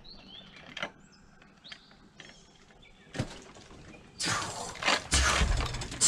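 Faint bird chirps with a sharp click and a thump, then loud close rustling and scuffing from about four seconds in, with a heavy thump partway through.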